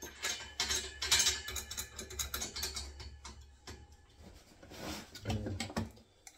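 A chrome radiator valve's compression nut being turned by hand onto the copper pipe tail, with a quick, irregular run of small metallic clicks and rattles that thins out after about four seconds.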